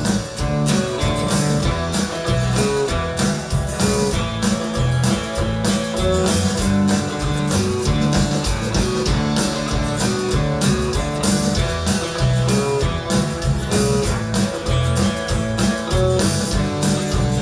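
Live country band playing an instrumental break between sung verses, guitar to the fore over bass notes and a steady drum beat.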